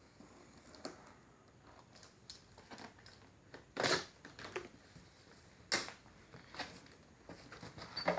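Subwoofer's cardboard box and packaging being opened and handled: scattered clicks and taps, with two louder brief rustles about four and six seconds in.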